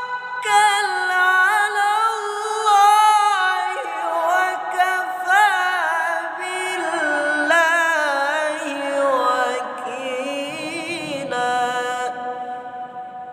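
A man's solo voice reciting the Quran in the melodic tilawah style. It is one long melismatic phrase in a high register, full of wavering ornaments, that slowly falls in pitch and settles on a held note near the end.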